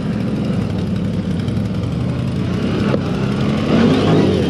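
CFMoto CForce 1000 ATV's V-twin engine running at low speed as the quad crawls over rough ground, the revs rising briefly near the end.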